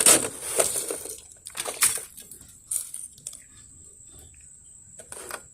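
Wet leaves and debris being scooped out of a clogged roof gutter by hand: a few short scrapes and rustles, mostly in the first two seconds, then only scattered small ones.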